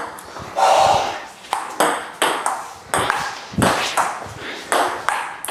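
Table tennis rally: the ping pong ball clicking sharply off paddles and the table in an even back-and-forth, about two hits a second, with a short burst of noise about half a second in.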